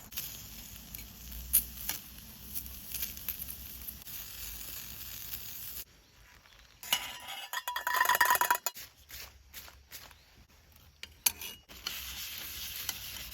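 Vegetable scraps sizzling as they are stir-fried on a small hot iron grill plate that is being seasoned, with clicks and scrapes of a utensil on the metal. The sizzle drops away briefly a little before halfway, and a louder scraping clatter with a ringing tone comes about halfway through.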